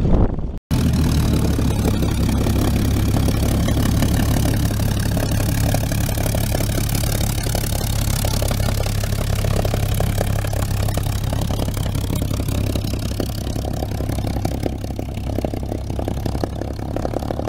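Supermarine Spitfire's V-12 piston engine running at a low taxiing idle: a steady, deep, evenly pulsing rumble that eases slightly near the end as the plane taxis away.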